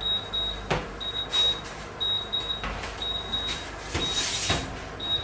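Electric oven's timer beeping, a high double beep about once a second. Over it come a few knocks and a rustle as crusty baguettes are lifted out of the oven and set on a wire rack.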